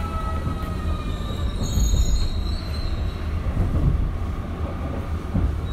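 Kyoto Municipal Subway Tozai Line 50 series car running through a curve, its wheel flanges squealing against the rail. The thin high squeal fades out about halfway through, over a steady low rumble of the running gear.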